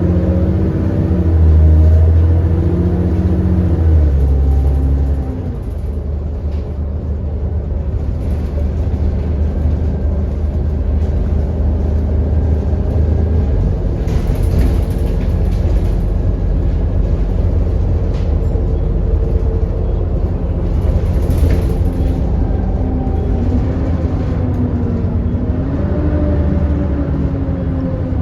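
ADL Enviro400 double-decker bus's diesel engine and running gear heard from inside the bus while it is under way, a steady low rumble. The engine note eases about five seconds in and rises and falls again near the end. Twice, about halfway and two-thirds through, a brief hiss cuts in.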